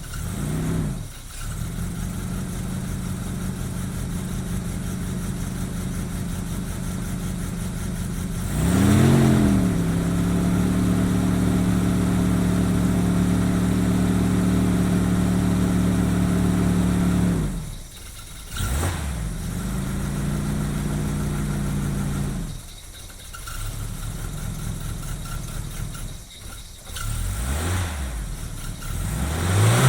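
Vauxhall Carlton car engine idling and being revved. About nine seconds in it gives a quick rev, then runs steadily and louder for about eight seconds. After that it drops back, with short blips of the throttle and more revving near the end.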